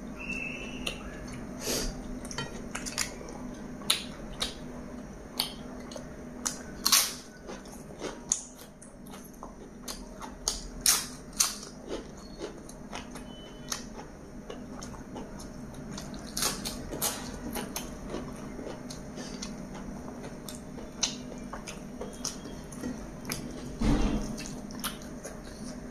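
Close-miked eating sounds: chewing with lip smacks and sharp crunchy clicks from biryani rice, chicken and papad, scattered irregularly, and a louder knock about 24 seconds in as the hand works in the plate.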